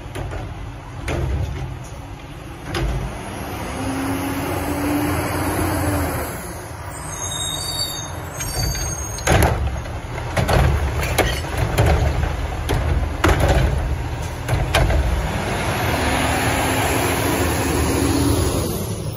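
Autocar WXLL garbage truck with a McNeilus body and Curotto-Can arm, its diesel engine revving to drive the hydraulics with a steady whine as the arm lifts a cart. In the middle, a run of sharp bangs and knocks as the cart is tipped and shaken out into the hopper, then the engine revs and whines again as the arm lowers the cart and the truck moves off.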